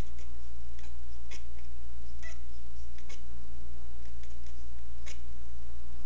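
Domestic cat chattering at birds seen through a window: about ten short, clicky chirps at irregular spacing, over a steady low hum.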